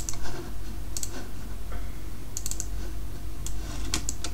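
A handful of irregular clicks and taps on a computer keyboard, over a steady low hum.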